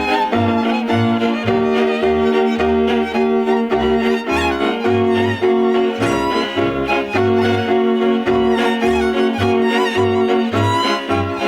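Transylvanian folk string band playing: a fiddle leads the melody over held viola chords, with a double bass sounding short, regular low strokes in a steady dance rhythm.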